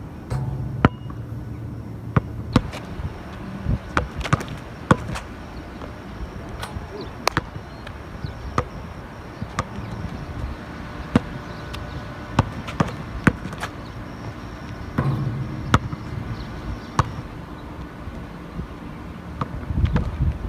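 A basketball bouncing hard on an outdoor asphalt court as it is dribbled: sharp, irregular bounces, sometimes several in quick succession, over a low rumble that comes and goes.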